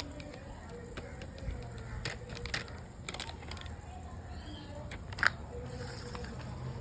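Handling noises from the herbal powder containers being moved: scattered short clicks and rustles, the loudest a sharp click about five seconds in, over a low steady hum.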